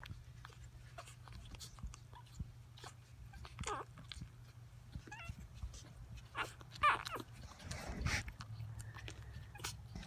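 One-week-old puppies giving short, high, wavering squeaks and whimpers several times, the loudest about two-thirds of the way in, amid small clicks and rustles over a steady low hum.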